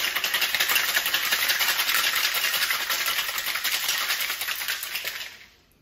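Ice rattling inside a metal cocktail shaker as it is shaken hard: a fast, steady rattle that dies away near the end.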